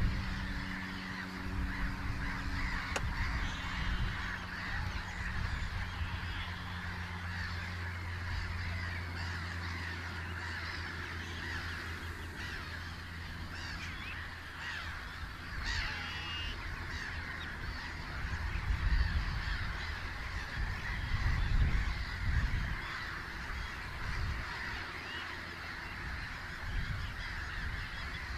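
A large roosting flock of red knots calling all at once, a dense, continuous chatter of short calls. A low hum and rumble run underneath, swelling a few times in the second half.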